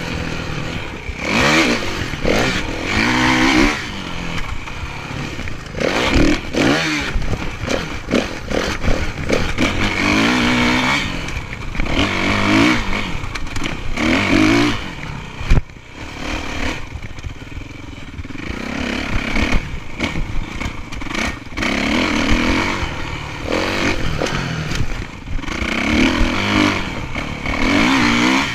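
Dirt bike engine revving up and easing off again and again as it is ridden hard around a motocross track, picked up by a chest-mounted camera with wind noise over the microphone. A single sharp knock about halfway through.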